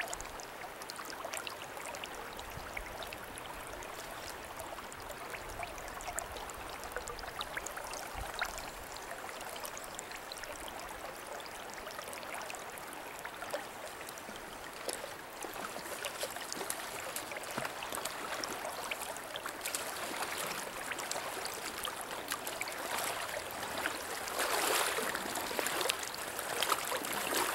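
Shallow river running over a riffle, a steady rush of water. Near the end the water gets louder and splashier as a hooked trout is drawn into the landing net.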